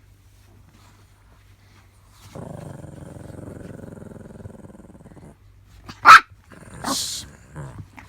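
Small dog growling low for about three seconds, then one loud, sharp bark about six seconds in, followed by a few shorter yips and snaps: a brief squabble between a Chihuahua and a Shih Tzu.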